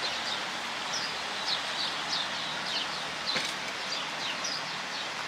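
Small birds chirping in short repeated notes, a few a second, over a steady hiss of outdoor background noise, with a single sharp click about three and a half seconds in.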